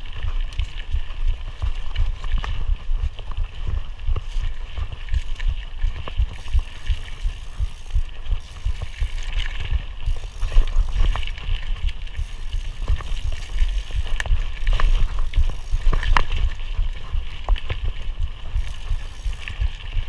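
Mountain bike being ridden along a dirt cross-country trail: a continuous low rumble full of rapid knocks, with sharp clicks and rattles as the bike goes over bumps.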